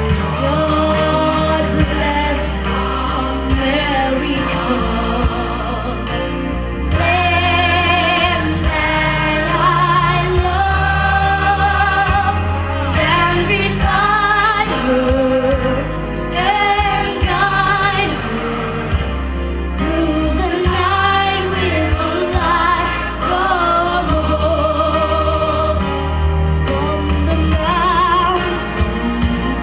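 A young girl singing solo into a microphone over recorded backing music, holding long notes with vibrato above a steady bass line.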